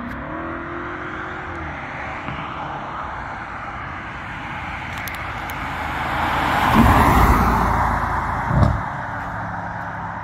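Audi B8.5 RS5's 4.2-litre V8 through its stock exhaust with the flaps open, pulling hard. The engine note rises in pitch in the first two seconds, then swells to its loudest about seven seconds in as the car passes, with a short sharp thump about a second and a half later before the sound fades away.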